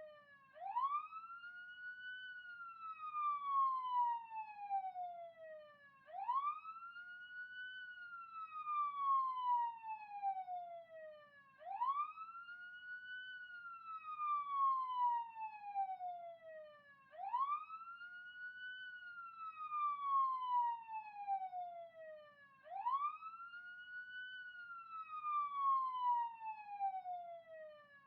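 Police siren in wail mode. Its pitch rises quickly, then falls slowly, repeating about every five and a half seconds, about five times.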